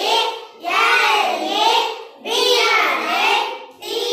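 Group of schoolchildren reciting the word in unison as a sing-song chant, in phrases of about a second and a half with short breaks between.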